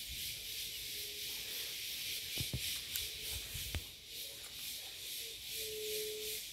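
Outdoor ambience: a steady high hiss, with a few soft thuds of footsteps on dry leaf litter in the middle and a faint hum that comes and goes, clearest near the end.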